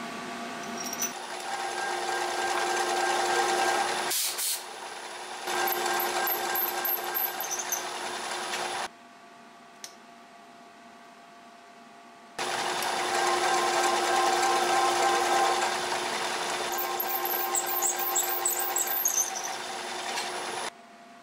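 Milling machine spindle running with a steady hum as a drill bit bores into a steel flywheel, with faint high chirps from the cutting. It stops about nine seconds in, starts again a few seconds later, and cuts off near the end.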